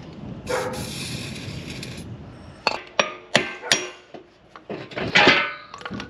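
Workshop noises: a hiss lasting about a second and a half, then four sharp knocks about a third of a second apart, then a ringing clang just after five seconds.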